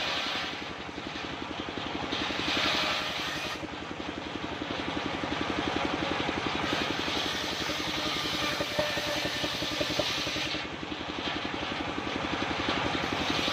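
Engine-driven assembled circular saw cutting jackfruit wood: a steady, rapid chugging from the engine under the hiss of the blade in the wood, which swells and eases as the cut goes on.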